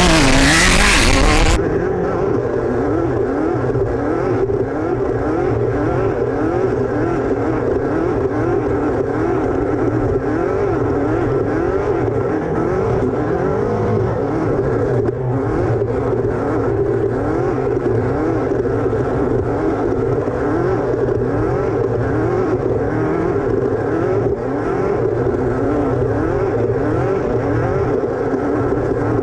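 Off-road race car engine, close and loud, its revs rising and dropping quickly over and over as the throttle is worked. Music cuts off about a second and a half in.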